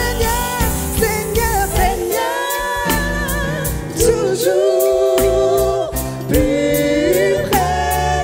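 Live gospel worship music: women's voices singing into microphones over keyboard accompaniment, with a bass line and a steady beat.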